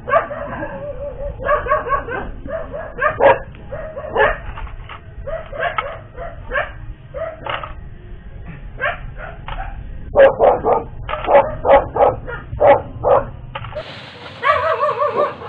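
A dog barking and yipping over and over in short, sharp calls.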